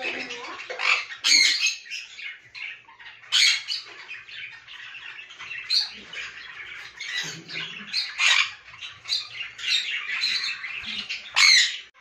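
Sun conure squawking: loud, shrill screeches every two seconds or so, with softer chattering calls between.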